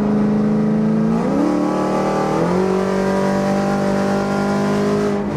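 Camaro 1LE's engine and AWE Track Edition exhaust running hard under acceleration at highway speed, heard from inside the cabin. The note is steady at first, then climbs in pitch in two steps about one and two and a half seconds in.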